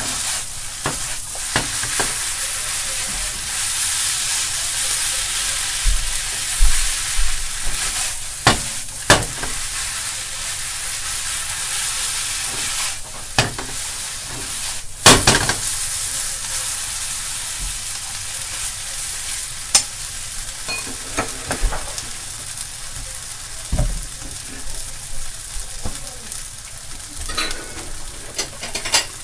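Noodles and cabbage sizzling in a hot nonstick frying pan while a wooden spatula stirs and scrapes them, with a steady frying hiss and scattered sharp knocks of the spatula against the pan.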